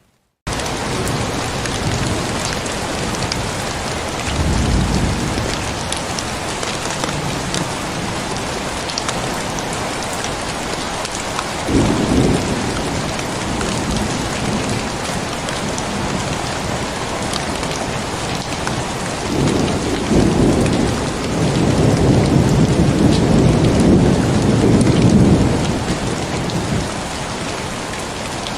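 Heavy, steady rain with thunder rumbling, a short roll about four seconds in, another about twelve seconds in, and a long rolling peal from around nineteen to twenty-six seconds. The rain cuts in abruptly after half a second of silence at the start.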